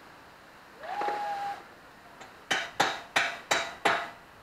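Five quick knocks, about three a second, each with a short ring: parts of a metal-framed play tower being struck during assembly. About a second in, a brief high tone rises and then holds.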